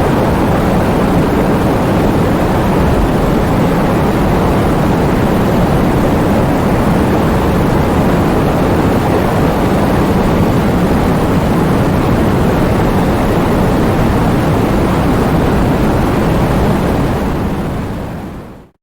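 Heavy rain falling as a steady, dense noise, fading out over the last two seconds.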